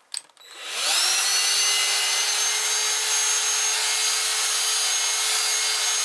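Dyson DC16 Animal handheld vacuum cleaner switching on with a click. Its motor spins up with a rising whine within about a second, then runs steadily with a high whine over the rush of air through an extension tube as it sucks up small scraps.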